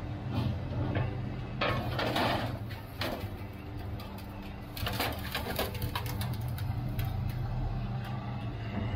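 Material handler's orange-peel grapple closing on and dragging scrap metal out of a trailer bin, with metal clanking and scraping about two seconds in and again around five seconds, over the steady hum of an engine.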